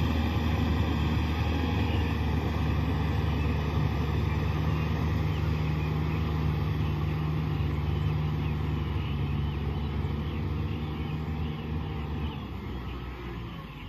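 Kubota M6040 SU tractor's diesel engine running steadily under load, pulling a cultivator through a flooded rice paddy. It grows fainter near the end as the tractor moves away.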